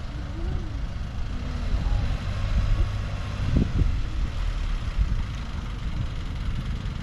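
Steady low rumble of a running vehicle engine, with a brief louder sound about three and a half seconds in.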